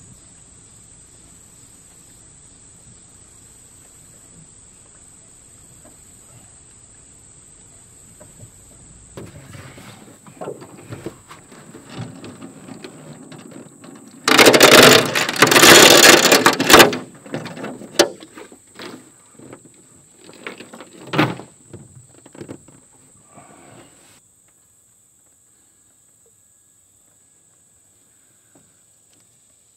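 Small outboard motor on a jon boat being worked and pull-started: rattling handling and cord pulls, with one loud burst of about two and a half seconds in the middle and another short loud one a few seconds later. A steady high insect drone runs underneath.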